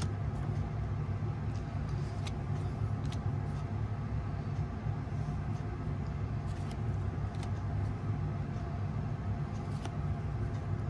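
Hockey trading cards handled and flipped through by hand, giving faint scattered clicks and slides over a steady low hum.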